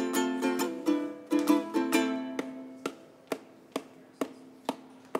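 Solo ukulele strummed in an instrumental break, chords with sharp percussive chops. About halfway through, a chord is left to ring and fade while sharp muted clicks keep time, about two a second.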